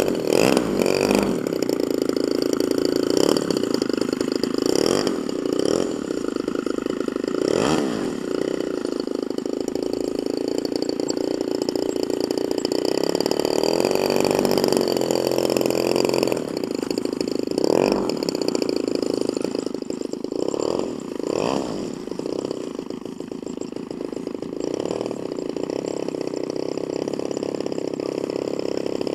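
Electric motor and propeller of an RC model plane buzzing steadily, with several brief surges of throttle.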